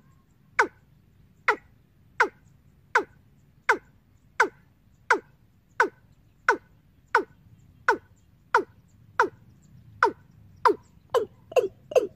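Recorded "ayam tembaga" bird-trapping lure call played through horn loudspeakers from a small amplifier. It is a sharp, falling note repeated about one and a half times a second, speeding up to about three a second near the end.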